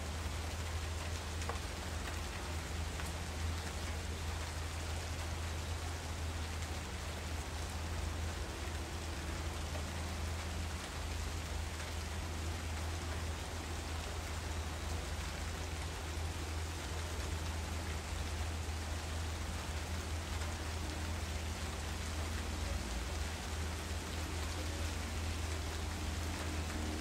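Steady, even rain-like hiss with a low hum underneath, unchanging throughout, with no distinct knocks or other events.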